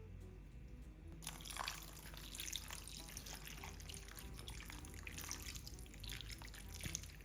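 Water dripping and trickling with a crackly, splashing sound, starting about a second in, over soft background music.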